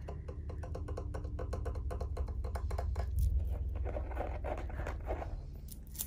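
Quick run of light clicks of fingers tapping the stool's gold-finished leg, then a hand rubbing over the padded seat cushion.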